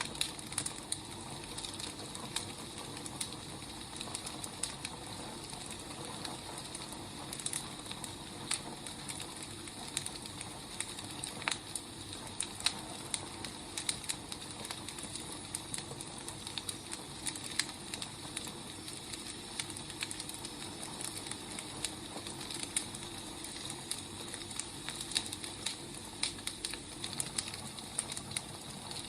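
Firewood burning: a steady low hiss with irregular sharp crackles and pops.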